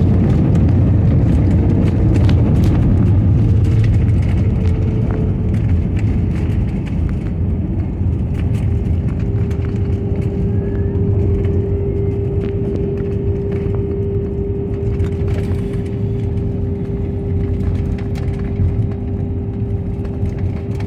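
Airliner cabin noise on the ground after landing: the jet engines running with a steady mid-pitched whine over a low rumble, with scattered rattles, slowly quietening.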